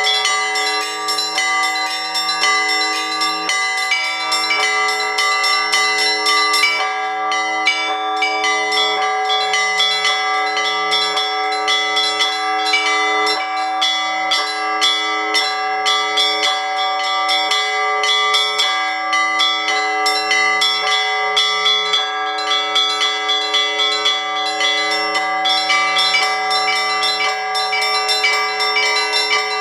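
Orthodox church bells rung by a bell-ringer, a zvon: many bells struck in quick succession, the small high bells chiming rapidly over the lingering ring of the larger ones.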